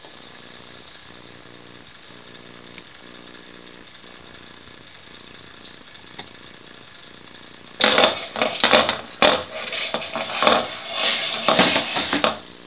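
A wall clock lying face up on a wooden floor scraping, knocking and rattling as a cat pushes and paws it along, in a loud run of rough scrapes that starts about eight seconds in.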